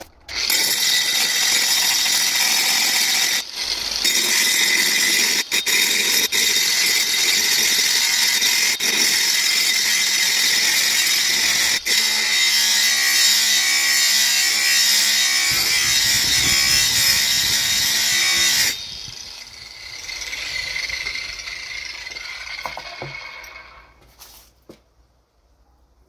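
Corded angle grinder sharpening a steel axe blade: a loud, steady grinding of the disc on the steel for about eighteen seconds, with a few brief breaks where the disc lifts off. Then the grinding stops and the grinder's motor hums more quietly and dies away.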